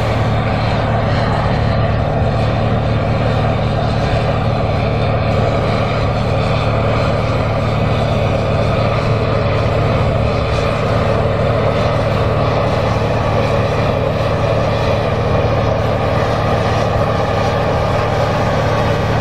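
John Deere 8R tractor's six-cylinder diesel engine running steadily under load while it pulls a tillage implement through the ground, a constant low drone.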